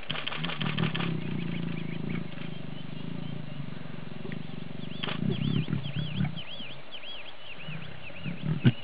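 Lion growling: a long, low, pulsing rumble for about six seconds, then a few shorter growls near the end.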